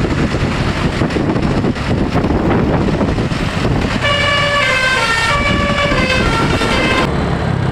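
Bus telolet basuri horn playing a short stepped melody of flute-like notes for about three seconds, starting about four seconds in. Before it there is a loud, steady rushing noise.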